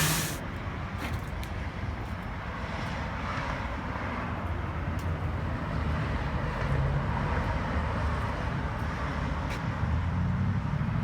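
Pressure washer's gas engine running with the spray gun off: the loud spray hiss cuts off at the very start, leaving a steady engine hum with a few faint clicks.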